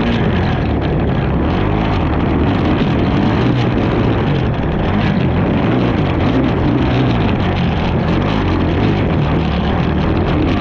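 Racing ATV engine running continuously at loud, steady volume, with no break.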